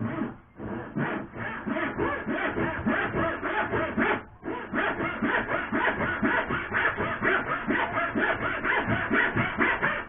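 Hand saw cutting through a wooden batten in quick back-and-forth strokes, about four to five a second, with a brief pause a little past four seconds in before the sawing resumes.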